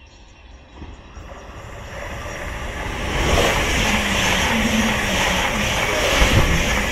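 Greater Anglia Class 745 electric multiple unit passing through at speed. Its noise builds over the first three seconds as it approaches, then holds loud and steady as the carriages run past.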